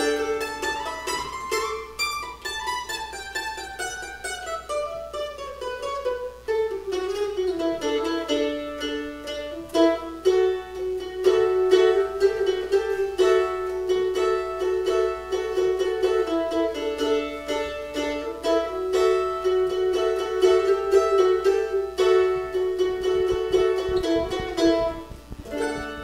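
Solo F-style mandolin picked in a reverberant room: a falling run of notes in the first few seconds, then long held notes, with the tune dying away just before the end.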